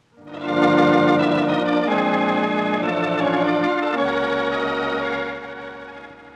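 Organ music bridge: sustained chords that change twice, then fade out near the end.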